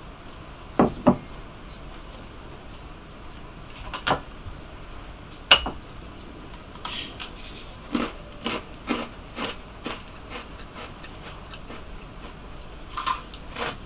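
Crockery knocking on a wooden table, then a crisp ginger biscuit being snapped on a ceramic plate and crunched while eaten, in sharp separate cracks and a run of smaller crunches.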